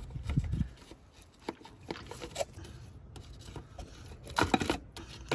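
Pliers working a plastic clip off the radiator fan wiring harness: scattered small clicks and rattles, with a louder cluster of clicks near the end.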